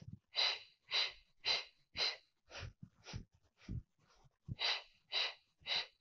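A woman's short, sharp breaths through the nose and mouth in a quick steady rhythm, about two a second, paced to alternating leg kicks in the Pilates single leg kick. Soft low thuds fall among the breaths.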